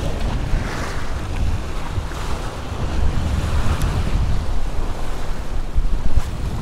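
Surf washing against jetty rocks, with gusty wind rumbling on the microphone.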